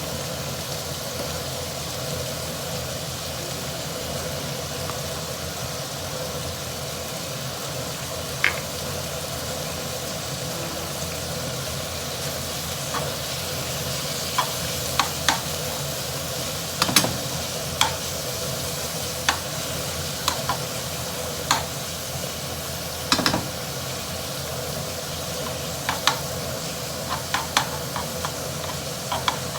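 Food sizzling in a hot pan while being stir-fried, with a spatula clicking and knocking against the pan, only now and then at first and much more often in the second half.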